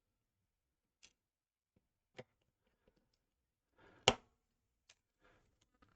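Scattered small clicks and taps from handling the opened iPod and its replacement battery, with one sharper, louder click about four seconds in.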